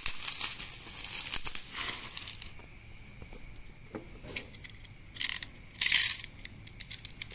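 Plastic bubble wrap crinkling and rustling as it is pulled away from a cardboard box, easing off after about two and a half seconds. Two short, loud rustles follow near the end.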